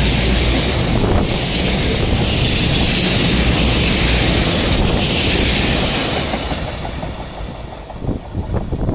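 A goods train of BCACBM car-carrier wagons rolling past at speed: a loud, steady rush of wheel and air noise that fades away after about six seconds, leaving a few separate wheel clacks on the rail near the end.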